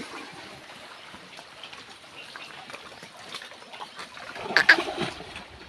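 Water buffaloes wading in a shallow stream: faint splashing and trickling water, with a louder burst of splashing about four and a half seconds in.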